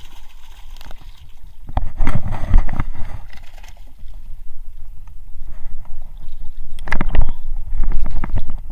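Wind buffeting the microphone over a small boat on rough water, with a heavy low rumble that surges twice, about two seconds in and again about seven seconds in.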